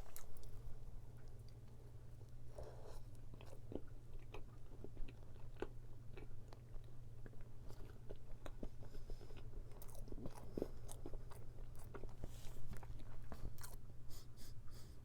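Close-up chewing and crunching of a crisp-crusted tart, with many small sharp crunches scattered throughout.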